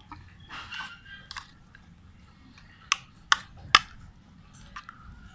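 A metal spoon stirring a wet mash of chopped red chili in a metal saucepan: wet squishing and scraping, then three sharp clinks of the spoon against the pot about three to four seconds in.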